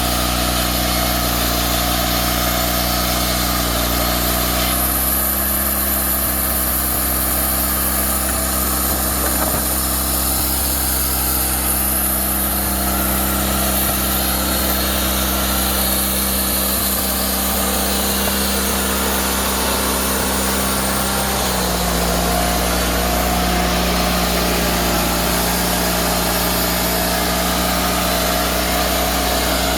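Engine of a Wood-Mizer LT40 portable sawmill running steadily. Its note changes about five seconds in, a higher hiss joining it, and returns to the earlier note a little after twenty seconds.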